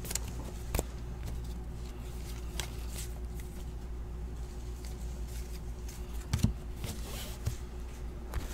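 Trading cards being handled and sorted by hand: faint scattered clicks, slides and taps of card stock, with a soft knock about six and a half seconds in, over a steady low hum.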